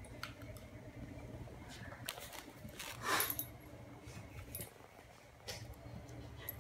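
A small dog gnawing and mouthing a large beef rib bone: scattered clicks and knocks of teeth on bone and of the bone against the hard floor, with a louder scrape about three seconds in as it picks the bone up and carries it.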